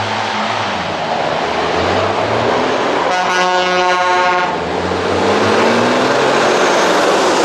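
Dakar rally truck's large diesel engine pulling away from the start and accelerating up the hill toward the listener, its pitch rising near the end. A horn blows one steady note for about a second and a half, about three seconds in.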